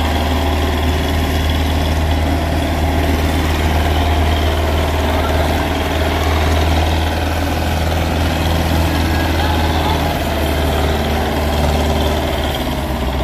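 Farm tractor's diesel engine running under load as it pulls a trolley heaped with sugarcane, a steady deep drone.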